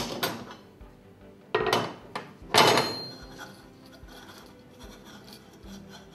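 Metal hand tools put down on a wooden workbench, with three sharp clanks in the first three seconds, the loudest about two and a half seconds in. Then quieter scraping and rubbing as the stainless steel submersible pump is turned by hand to unscrew it from its motor.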